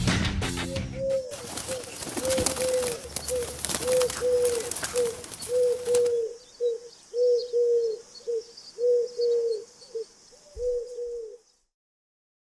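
A dove cooing over and over, in short and longer coos. For the first few seconds the coos sit over a rustling noise, and they stop suddenly near the end. Guitar-and-drums music ends about a second in.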